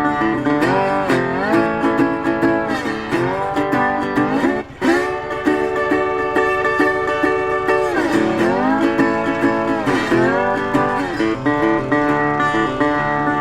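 Background music: an instrumental stretch of a country song, with plucked guitar and a lead line that slides up and down between notes.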